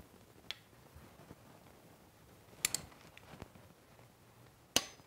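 A few scattered light clicks from a machinist vise being tightened with a torque wrench, with a sharper metallic click near the end.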